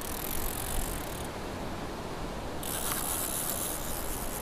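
Penn Slammer spinning reel being cranked, its rotor and gears whirring in two spells of winding, over the steady wash of surf.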